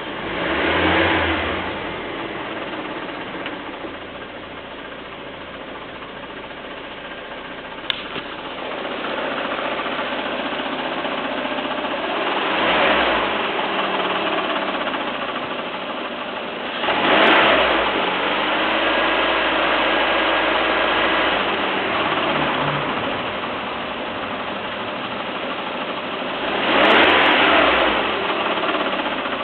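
Peugeot 307's 1.6 16-valve petrol four-cylinder engine running, revved in four short blips. Under it is the odd clacking noise that the owner is trying to trace.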